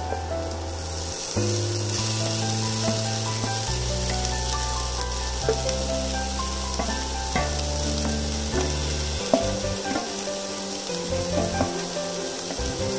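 Shredded shark fish frying in hot oil in a pan with sautéed onion and spices, a steady sizzle that sets in about a second in as the fish is tipped in.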